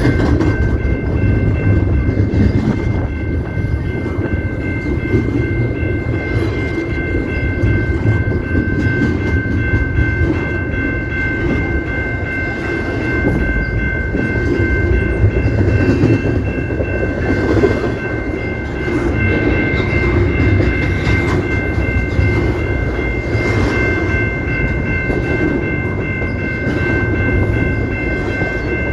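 CP Rail train rolling past with a steady, heavy rumble. A continuous high-pitched ringing tone sits over it, unbroken throughout.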